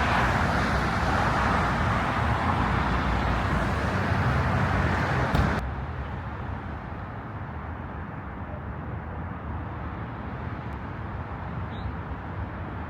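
Steady rush of road traffic: car tyres and engines passing on a nearby road. About halfway through it drops suddenly to a quieter background hum of traffic.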